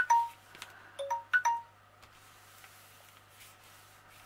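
A short electronic chime melody: a low note, a higher one, a higher one still and back down, played twice about a second and a half apart and stopping about two seconds in. Light clicks and paper rustling under the hands come with it.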